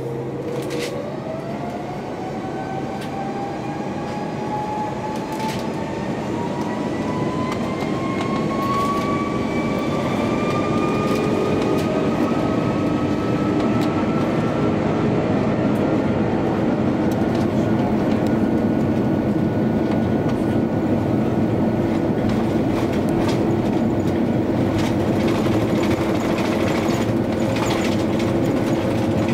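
Airbus A330 jet engines spooling up to takeoff power, heard from inside the cabin: a whine climbs steadily in pitch over the first ten seconds or so. The engine noise and the rumble of the wheels on the runway then build into a loud, steady noise as the airliner speeds up on its takeoff roll.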